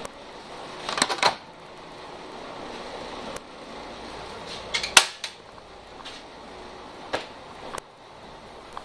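Inside a MAN Lion's City G articulated bus: a steady low cabin noise broken by sharp knocks and clatters. There is a cluster about a second in, the loudest knock just before the middle, and two single knocks near the end.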